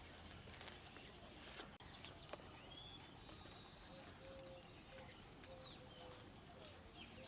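Faint outdoor ambience with scattered bird calls, short chirps and a few brief whistled notes, and a few soft clicks.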